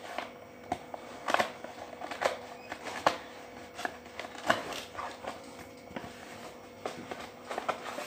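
Cardboard and paper packaging being handled: scattered light clicks, taps and rustles, irregular, a few every second, over a faint steady hum.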